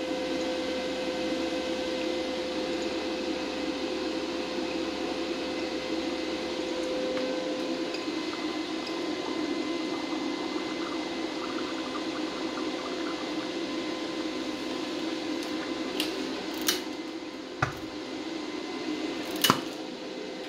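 Hydrogen gas from a water-electrolysis unit bubbling steadily through a glass of water, over a faint steady hum. A few sharp clicks come near the end.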